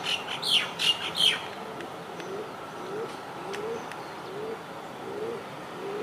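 Greater coucal calling a steady series of low, short, rising hoots, one roughly every three-quarters of a second. In the first second and a half another bird gives three or four loud, high, down-slurred chirps over them.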